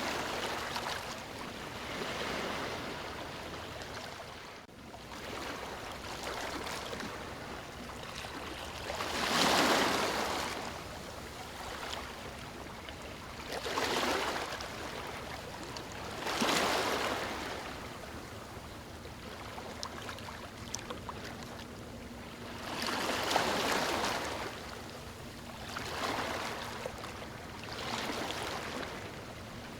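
Sea waves washing onto a beach: a steady hiss of water that swells into louder surges every few seconds and falls back between them.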